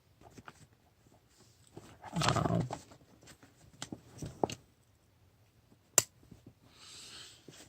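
Gear being handled: scattered clicks, one sharp click about six seconds in, and soft rustling near the end. A short, low, voice-like sound about two seconds in is the loudest thing.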